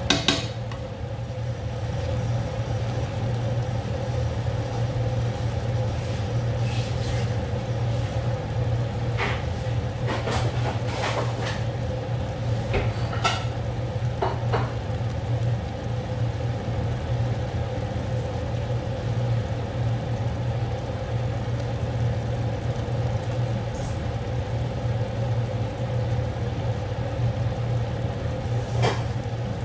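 Tomato sauce with minced chicken and chorizo simmering in a steel pan, giving scattered soft pops and ticks, with a spatula clatter against the pan at the start. Under it runs a steady low hum from the kitchen.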